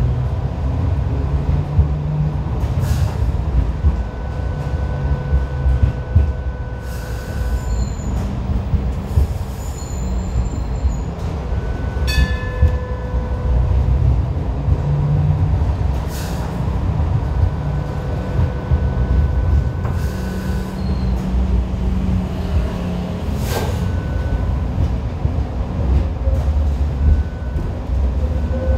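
Kawasaki-built light rail train running along the track, heard from its trailer car: a steady low rumble of wheels on rail under a faint electric hum, with several sharp clacks as the wheels pass over rail joints or points.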